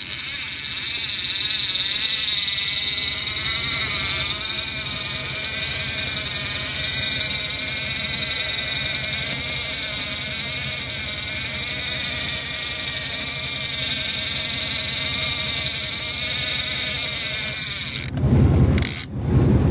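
Electric downrigger motor running steadily as it pays out cable and lowers the trolling weight, a whine with a slightly wavering pitch. It cuts off near the end.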